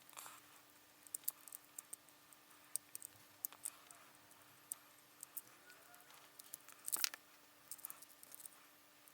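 Faint, scattered clicks and taps of small plastic toy parts being handled and pried off a transforming robot figure, with a louder cluster about seven seconds in.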